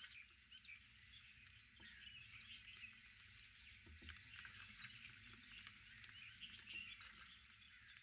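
Faint chorus of birds, many short chirps and calls scattered densely throughout, over a low steady rumble of outdoor ambience.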